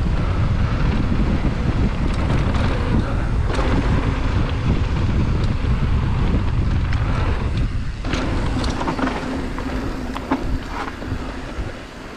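Wind buffeting the microphone over the tyre rumble of a GT Fury downhill mountain bike running fast down a dirt jump trail, with scattered knocks and rattles from the bike. It quietens over the last couple of seconds.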